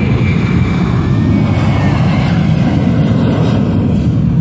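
Boeing 737-800's CFM56-7B turbofan engines at takeoff thrust during the takeoff roll: a loud, steady jet rumble, with a high hiss that swells in the middle.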